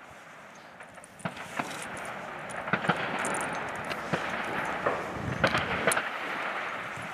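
Scattered sharp metallic clicks and rattles as cartridges are picked from a small box and a Martini .310 cadet rifle's breech is handled for loading, over a steady rushing noise.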